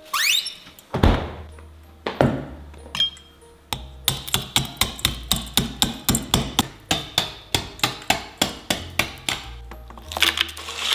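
A quick rising swish, a few single sharp knocks, then a long run of even, rapid strikes at about four a second, like a hammer or blade beating on a hard surface, over a low steady hum.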